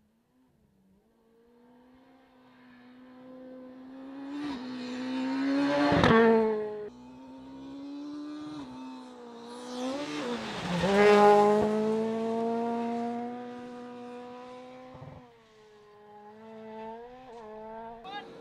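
Rally car engines at full throttle on a gravel stage, pitch climbing and dropping back at each gear change as the cars approach and pass. The two loudest passes come about six and eleven seconds in.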